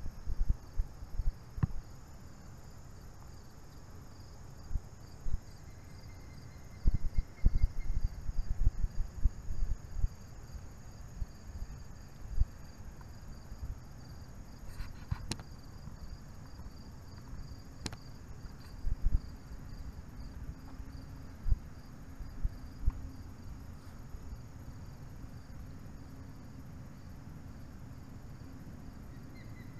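Steady high insect chorus of summer-evening trilling, running through the whole stretch, with irregular low rumbles and bumps on the microphone that are heaviest in the first ten seconds.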